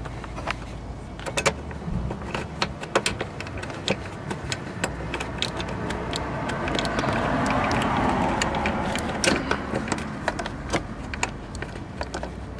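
Small socket ratchet clicking in quick runs as a bolt is turned in, with light metal clinks. A broad rushing sound swells and fades in the middle.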